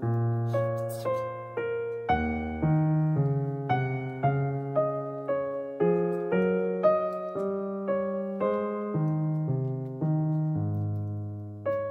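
Background piano music: a melody of single struck notes, about two a second, each fading before the next.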